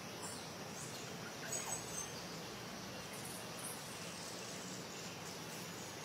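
Forest ambience: a steady hiss of background noise and insects, with a few short, high bird chirps about one and a half to two seconds in and a couple more faintly a little later.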